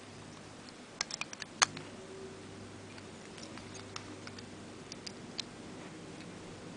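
Small clicks and taps of metal and plastic Beyblade parts being handled and snapped together during assembly: a quick run of clicks about a second in, the sharpest just after one and a half seconds, then a few scattered single clicks.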